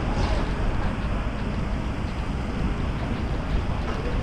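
Steady wind noise buffeting the microphone outdoors, a continuous low rushing with no distinct events.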